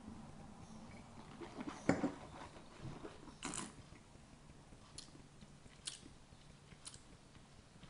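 Faint mouth sounds of a taster sipping and working rosé wine in the mouth: a short sip about two seconds in, then a longer noisy slurp about a second and a half later. A few small sharp clicks follow at about one-second intervals.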